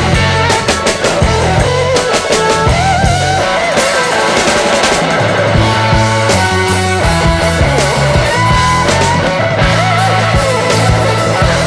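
Loud music with guitar, a heavy bass line and drums.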